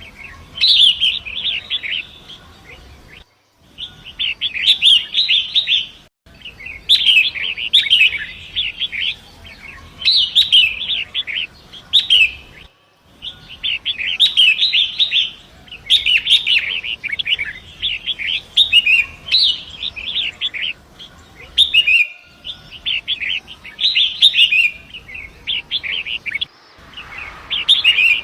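Long-tailed shrike (pentet) singing a fast, chattering song in phrases of a second or two with short pauses between them. The song drops out abruptly a few times.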